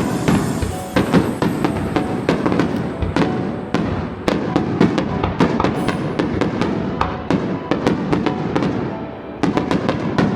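Aerial fireworks bursting in a dense barrage of sharp bangs and crackles, one on top of another. The barrage eases briefly shortly before the end, then a few more bangs go off, with music playing underneath.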